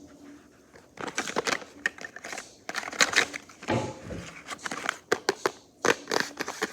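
Packaging being handled and opened by hand: irregular crinkling and sharp clicks that start about a second in.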